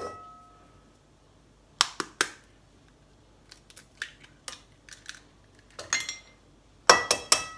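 Eggs being cracked on the rim of a metal saucepan: two sharp taps about two seconds in, then small ticks of shell, and a quick run of taps near the end that leaves the pan ringing briefly.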